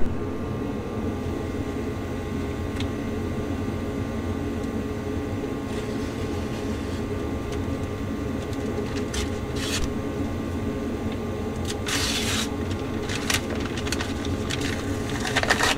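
Steady machine hum in the background, with a few short crinkles and rustles of a brown paper wrapper being unfolded and torn open in the second half.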